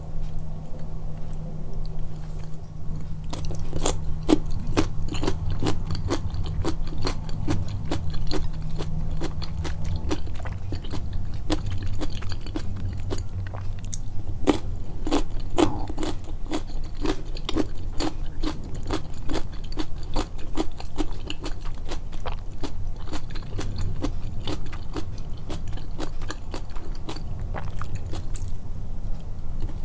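Close-miked mouth chewing and biting of food, with moist clicks and light crunches in a steady rhythm of about two to three chews a second. A low steady hum runs underneath, one tone of which stops about ten seconds in.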